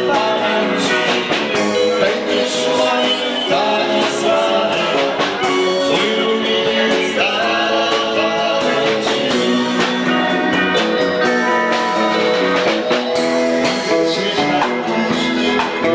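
A band playing rock-style music with guitar and drums. The recording sounds thin, with little bass.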